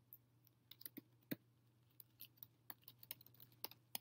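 Typing on a computer keyboard: quiet, irregular keystrokes starting under a second in, over a faint steady low hum.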